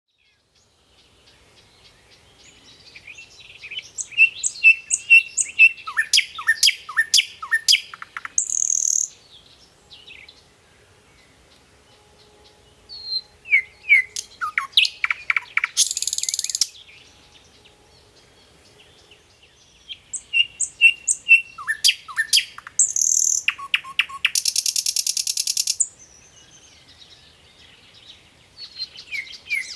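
A songbird singing the same loud phrase over and over, about every seven to eight seconds. Each phrase is a run of quick chirps and falling slurred notes ending in a harsh, rapid buzzy trill.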